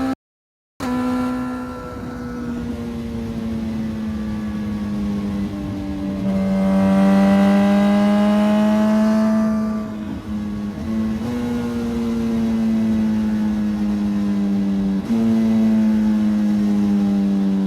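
Suzuki Hayabusa inline-four motorcycle engine running through a Brocks exhaust. The sound cuts out for a moment just after the start. The engine note sinks slowly and jumps back up sharply twice, and swells louder for a few seconds in the middle.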